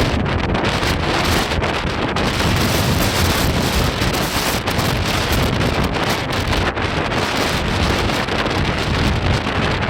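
Storm wind blowing hard across the microphone in a steady, rumbling rush, with the surf of a rough sea beneath it.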